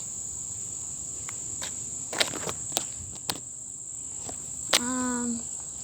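Steady high-pitched insect chirring. A few sharp clicks fall in the second half.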